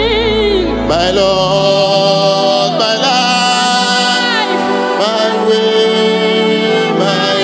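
A man and a woman singing a gospel song together, with long held notes that waver, over a sustained instrumental backing. A deep bass note drops out about two seconds in.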